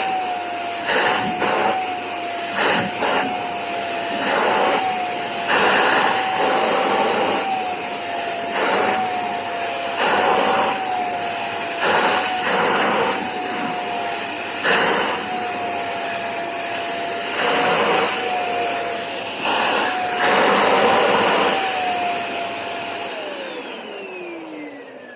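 Vacuum cleaner running, its motor whine wavering slightly, with repeated surges of louder rushing suction as the nozzle is passed over the pet's coat. Near the end the vacuum is switched off and the whine falls in pitch as the motor winds down.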